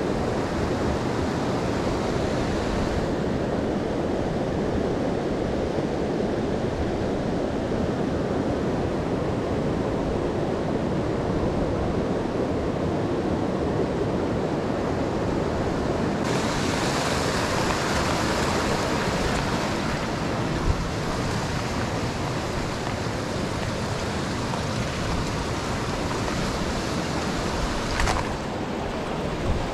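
Steady rushing of a rocky mountain stream. The sound grows brighter and more hissing about halfway through, and there is a single short click near the end.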